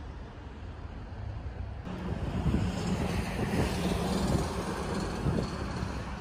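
Street ambience: road traffic running by, with wind on the microphone. It gets louder about two seconds in, with a low steady engine hum under the noise.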